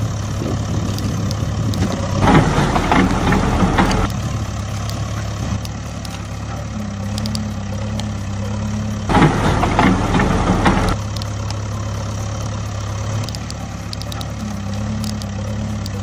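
Heavy diesel excavator engine sound, idling with a steady low hum, twice running louder and rougher for about two seconds. With its abrupt start and stop it is a dubbed-in or toy-made engine sound for a toy JCB excavator, not a real machine.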